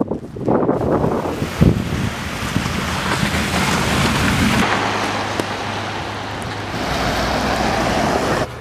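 Loud wind rushing and buffeting across the microphone in a blizzard, swelling and easing, and stopping abruptly near the end.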